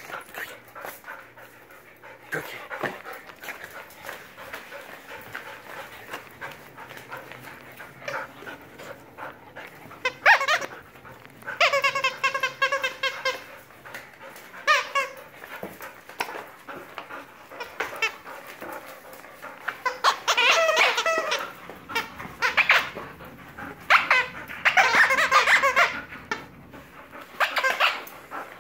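Golden retriever romping around a tiled room during a bout of zoomies: scattered clicks and scuffles, then several bouts of high-pitched squealing, the first about ten seconds in and the rest through the last third.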